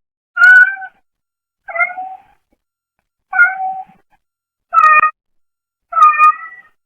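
Brown tabby domestic cat meowing: five short meows about a second and a half apart, picked up by a pet camera's microphone.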